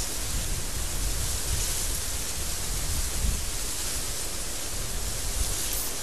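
Strong desert wind blowing steadily, a dense even hiss with a low rumble underneath.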